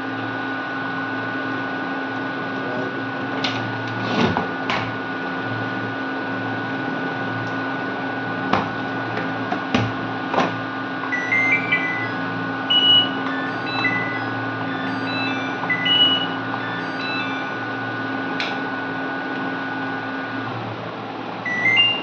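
Sharp clicks as the power button of an IFB top-load washing machine's control panel is pressed, followed by its buzzer playing a run of short electronic beeps at changing pitches as the panel powers up. A steady electrical hum runs underneath and stops shortly before the end.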